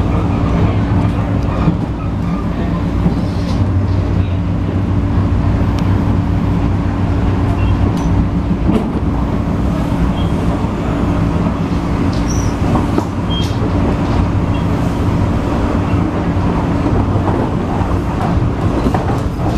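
Interior of an MTR East Rail Line MLR (Metro-Cammell) electric multiple unit running, heard beside the doors: a steady rumble of the train on the track with a constant low hum.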